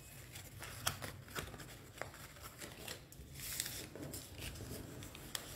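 A sheet of printed paper being folded and creased by hand against a tabletop: faint rustling and crinkling with scattered small ticks, and a brief sliding swish of paper about three seconds in.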